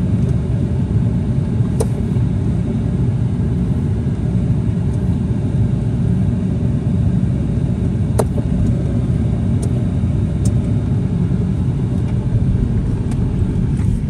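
Steady low road-and-tyre rumble from a Toyota Prius driving along a rough, bumpy road, with a few light sharp knocks.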